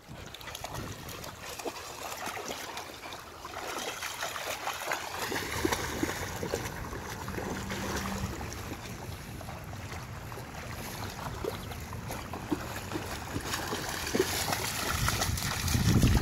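Lake water splashing and lapping as dogs wade and swim in the shallows, with many small splashes throughout and the loudest splashing near the end as a dog walks out through the water.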